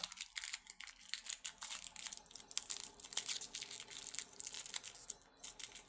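Wrapper of a Vicks honey cough drop being torn open and unwrapped by hand: a steady run of quick crinkles and crackles.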